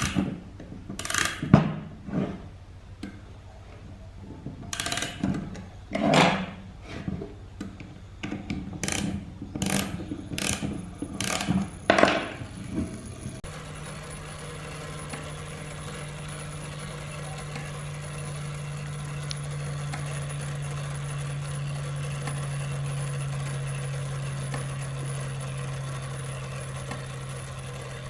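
Brass pendulum-clock movement being wound with its key and handled on a wooden bench: a dozen or so irregular metal clicks and knocks, a few of them ringing briefly. About halfway through, the clicks stop and a steady low hum with a faint high tone takes over.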